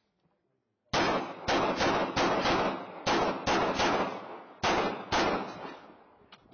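Semi-automatic pistol fired rapidly in a practical-shooting stage: about ten shots in quick pairs and threes beginning about a second in, each followed by a short ringing echo.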